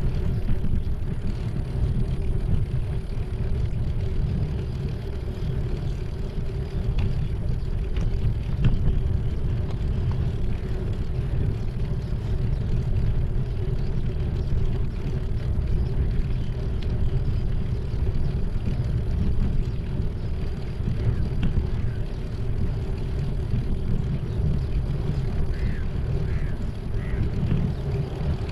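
Steady low rumble of wind on the microphone and bicycle tyres rolling over a concrete path while riding.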